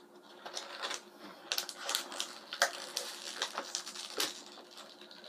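Plastic toy packaging crackling and clicking irregularly as it is handled.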